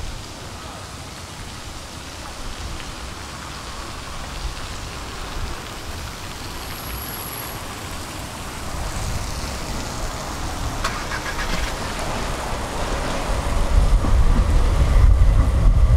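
Tram running on its rails: a steady rolling rumble that grows louder over the last few seconds, with a sharp clack about eleven seconds in.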